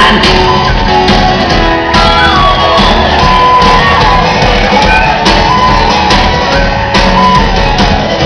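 Live folk-rock band playing an instrumental passage: a held, gliding melody line over the full band, with no singing.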